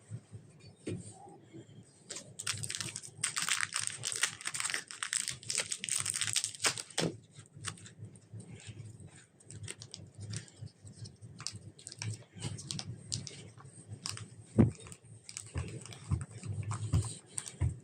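Slime and clay being kneaded and mixed by hand: sticky crackling and popping clicks, densest for a few seconds near the start, then thinning to scattered pops with one sharper pop about two-thirds of the way through.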